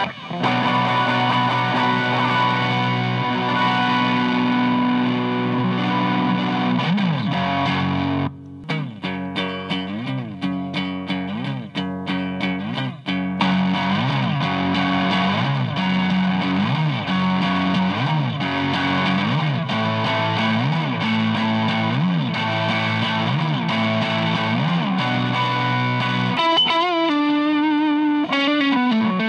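Electric guitar played through a DOD Juice Box FX51 overdrive pedal. It plays overdriven sustained chords, then a quieter passage of separately picked notes about eight seconds in, then chords again. Near the end the tone changes to a wavering one.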